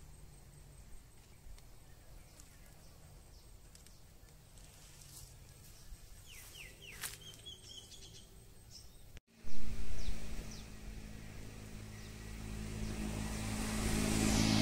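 Quiet outdoor ambience with a few faint bird chirps. About nine seconds in, the sound cuts, there is a brief loud knock, and then a motor vehicle's engine hum comes in and grows steadily louder as it approaches.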